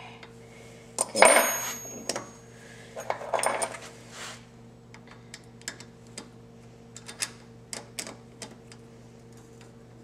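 Steel hand tools clinking against the valve train of a Briggs & Stratton Intek V-twin as its valve clearance is set: a wrench and screwdriver knocking on the rocker-arm adjuster and jam nut. There is a louder metallic clatter about a second in, another around three seconds in, then a run of scattered light clicks.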